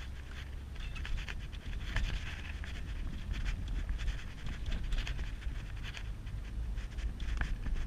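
Peugeot car driving, heard from inside the cabin: a steady low engine and road rumble, with frequent short irregular clicks and rattles on top.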